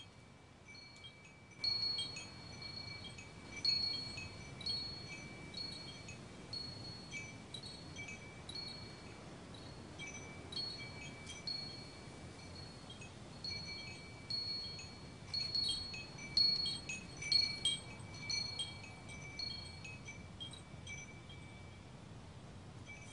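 Wind chimes ringing in irregular, overlapping strikes of a few high notes. They start about a second and a half in and are busiest a little past the middle, over a faint steady low hiss.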